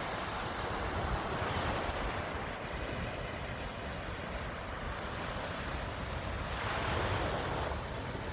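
Surf rushing, swelling near the start and again about six and a half seconds in, with wind rumbling on the microphone.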